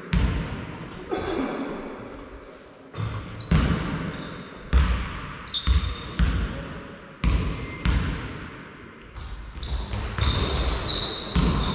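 Basketball bouncing on a sports hall floor about once a second, each bounce echoing through the hall, with short high sneaker squeaks in the last few seconds.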